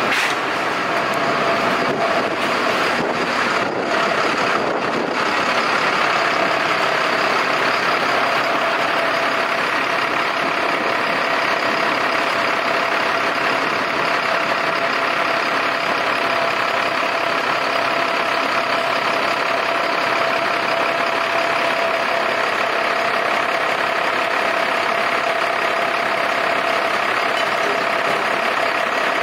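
A heavy diesel engine running steadily, with a steady whine over it.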